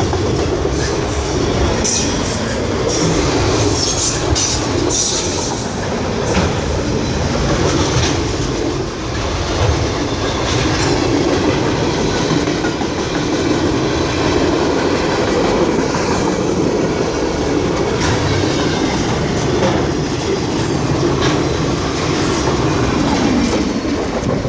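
Freight train cars rolling steadily past, a continuous loud rumble of steel wheels on rail with clacking over the rail joints. A few brief high squeals come in the first five seconds.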